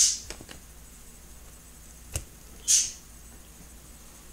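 Metal fork scraping and clicking against a plastic sushi tray while cutting into sushi: a short scrape at the start, a sharp click about two seconds in, and another brief scrape just after.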